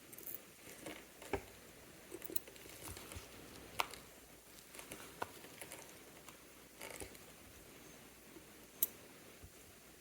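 Faint, scattered clicks and taps of small metal tools and parts on an Oris 712 mechanical watch movement during disassembly, with a few sharper ticks.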